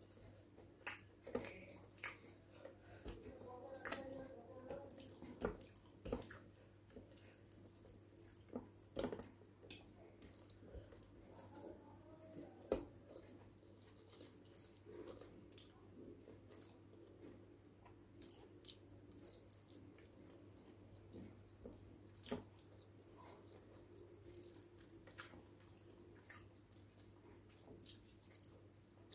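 Close-up eating sounds of someone eating egg biryani by hand: soft wet chewing, squelches of fingers in rice and scattered short mouth clicks, one or two a second. A faint steady low hum runs underneath.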